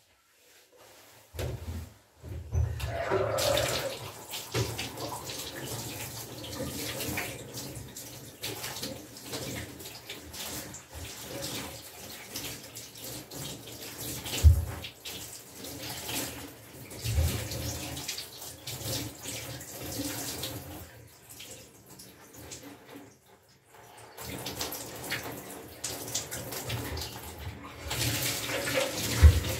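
Water running into a bathtub from the tap as paint-covered hair is rinsed under it; the flow starts about a second in, drops away briefly about three-quarters of the way through, then runs again, with a single knock near the middle.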